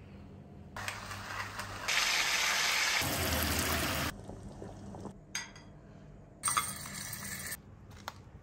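Parboiled rice and its hot cooking water poured out of a pot into a large aluminium vessel. The water gushes and splashes, starting softly, growing loud about two seconds in and stopping abruptly about four seconds in. Shorter clinks and clatters follow.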